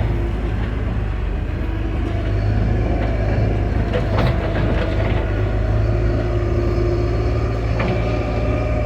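John Deere backhoe loader's diesel engine running steadily while the machine drives, with a low rumble. A couple of short knocks or rattles come through, about four seconds in and again near the end.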